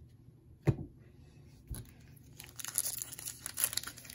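A single thump, then from about halfway through the foil wrapper of a Topps baseball card pack crinkling and crackling as it is torn open.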